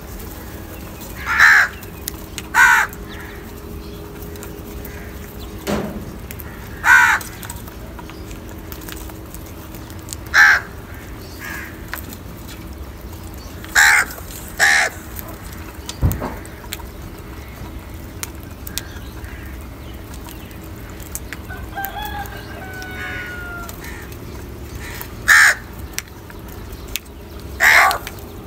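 House crows cawing as they feed together, loud short caws every few seconds, some in quick pairs.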